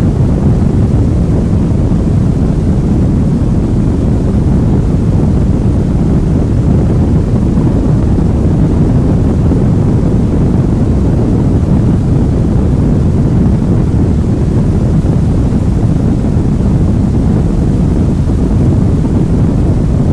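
Boat running at speed: a loud, steady rush of wind buffeting the microphone mixed with the hiss of hull spray and wake, heaviest in the low end.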